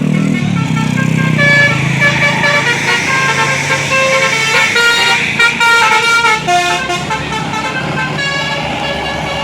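Telolet horn of a Basuri bus playing a fast melody of short notes stepping between pitches, over the low drone of the bus's engine, which is strongest in the first second.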